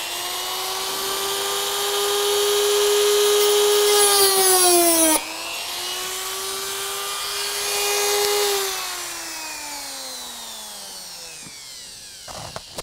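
Battery Dremel rotary tool with a steel diamond cutting disc running fast with a steady high whine, cutting armature wire with a harsh rasp twice. The pitch dips suddenly about five seconds in, then slides down near the end as the motor spins down.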